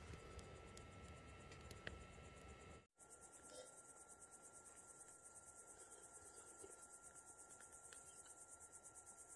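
Faint crickets chirping in a fast, even pulse, high-pitched, with a thin steady tone beneath. The sound cuts out for an instant about three seconds in.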